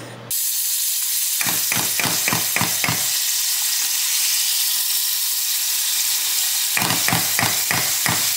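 Butter sizzling steadily as it melts in a hot stainless saucepan. Twice comes a quick run of spoon strokes as the butter is worked in the pan, about four a second.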